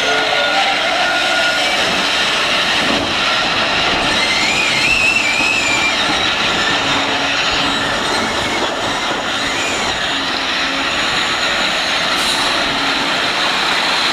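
Loud, steady running noise of a heavy vehicle, with a high, wavering metallic squeal about four to six seconds in.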